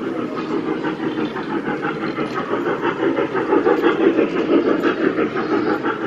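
Trackless ride-on mall train passing close, its running noise steady and swelling to its loudest about two-thirds of the way in as the coaches go by.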